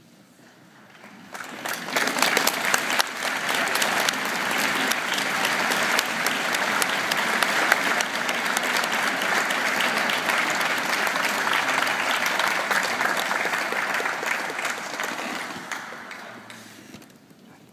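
Audience applauding: it swells up about a second in, holds steady, then dies away near the end.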